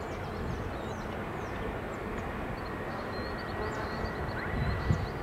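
Open-air ambience: a steady low rumble of background noise that swells slightly near the end, with small birds chirping in short, high calls throughout.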